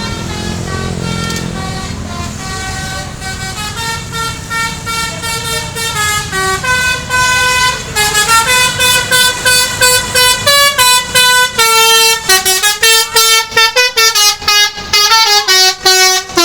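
Basuri multi-tone 'telolet' bus horn playing a tune: held notes stepping in pitch at first, then from about eight seconds in a run of short, quick toots that gets faster toward the end. A low rumble lies under the first half and fades out by about eleven seconds.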